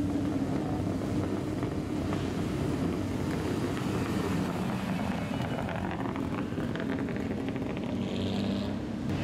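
Lowered kaido-racer-style old sedan driving slowly past, its engine and exhaust running with a steady low rumble.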